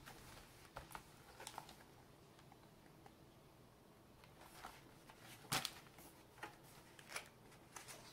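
Faint scattered rustles and clicks of a hardcover picture book being handled and its pages turned, the loudest click about five and a half seconds in.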